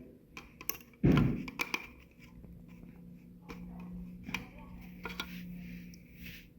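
Hard plastic parts being handled and snapped into place: a heavier thump about a second in, then several sharp clicks and taps. This is the sound of keystone inserts and blanks being fitted into a floor raceway data module. A faint steady hum runs through the second half.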